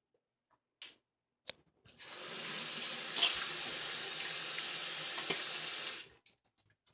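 A bathroom tap running into the sink in a steady hiss for about four seconds, turned on about two seconds in and shut off abruptly near the end, after a couple of short clicks.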